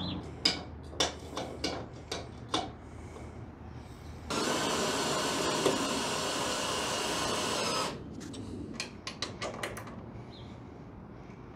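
Cordless drill with a socket extension runs steadily for about three and a half seconds near the middle, driving in a bolt on a roller bracket under a steel door rail. Before and after it, a string of sharp metal clicks and taps as the socket is fitted and the bolt is checked.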